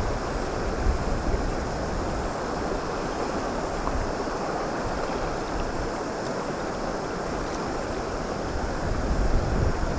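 Steady rush of a shallow river flowing over riffles, with gusty wind buffeting the microphone.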